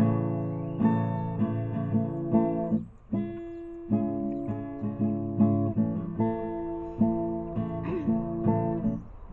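Acoustic guitar playing chords, with a short pause about three seconds in.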